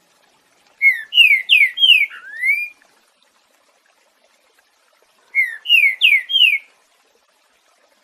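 Green-winged saltator (trinca-ferro) singing its 'boiadeiro' song: two short phrases of four quick downslurred whistles each, the first phrase ending in a rising note.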